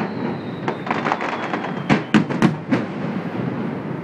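Fireworks display: aerial shells bursting in a rapid string of loud, sharp bangs over a continuous rumble, with a faint high whistle fading out about two seconds in.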